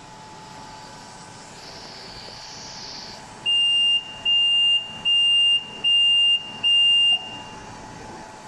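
Electronic buzzer of a Zhuomao ZM-R730A BGA rework station beeping five times, each a steady high half-second tone with short gaps, typical of the station signalling the end of its heating profile. A steady blower hum runs underneath.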